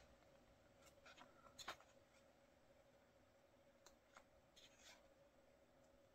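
Faint rustling and soft ticks of paper photobook pages being turned by hand, a few scattered touches over a faint steady hum.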